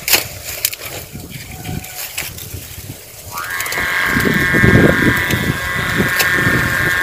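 Wind rumbling on the microphone, then about three seconds in a loud, steady buzzing drone starts and holds: a kite hummer (sendaren) strung across the head of a flying janggan kite, singing in the wind.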